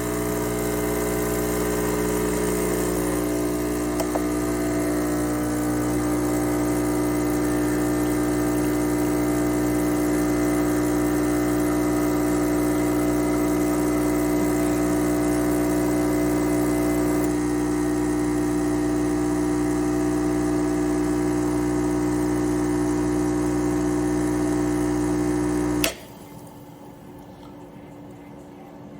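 Vibratory pump of a Gaggia Classic Evo Pro espresso machine running, a loud, steady buzzing hum. It runs for about 26 seconds, as long as a typical espresso shot, then stops suddenly with a click.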